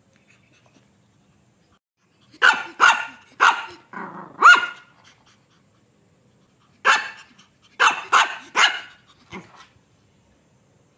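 Three-month-old Shih Tzu puppy barking in short sharp yaps: a run of four or five barks about two seconds in, then, after a pause, four more about seven seconds in.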